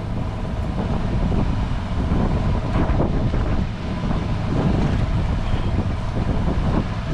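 Wind buffeting the microphone aboard a small fishing boat at sea: a steady low rumble of wind noise over the boat and water.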